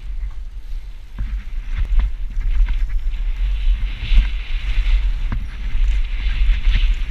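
Wind buffeting a helmet-mounted GoPro's microphone while a Specialized Enduro Elite full-suspension mountain bike rides down a rough trail, with sharp knocks and rattles as the bike hits bumps and a hiss of tyres on dirt that grows louder about four seconds in.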